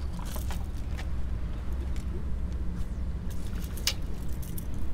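A few sharp clicks and taps over a steady low rumble, as a caught fish is held in a fish grip and unhooked on a concrete pier. The clearest click comes near the end.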